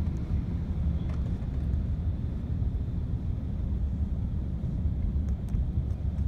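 Steady low rumble of a moving car heard from inside the cabin: engine and road noise with no sudden events.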